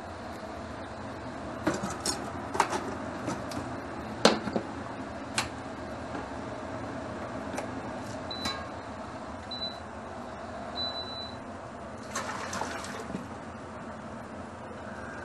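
Metal tongs knocking against a pot of blanching spinach, several sharp clinks over a steady hum. Three short beeps from the induction hob's controls follow, then a brief clatter near the end as the pot is moved to the sink.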